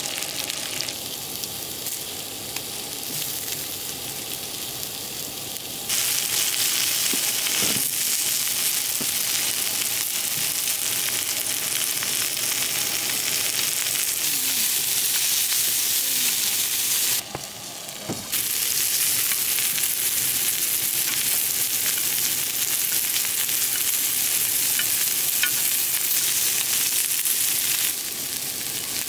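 Food frying in a hot pan, a steady sizzle. It gets louder suddenly about six seconds in, drops away briefly around seventeen seconds, and quietens again near the end, with a few small crackles.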